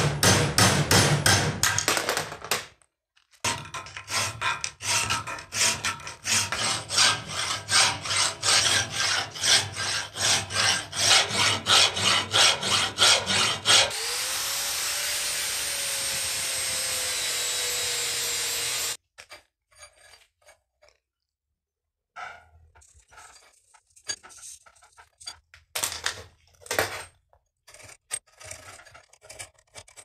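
Hand tools working a steel buckle frame held in a vise: a fast run of hard metal strokes for about the first fourteen seconds. Then an angle grinder cutting steel for about five seconds, its whine rising and then sagging slightly as the disc bites. After a short quiet, scattered file strokes on the frame.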